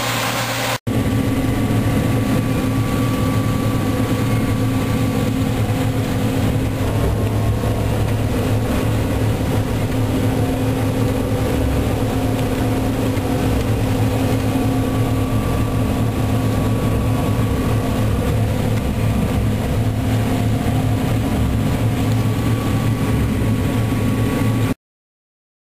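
John Deere C670 combine harvester working through rapeseed, heard from inside its cab: a steady, loud drone of engine and threshing machinery with a faint held whine over it. There is a brief break about a second in, and the sound cuts off suddenly near the end.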